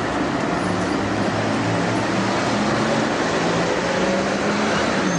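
Concrete mixer truck's diesel engine running steadily while concrete is delivered for the pour.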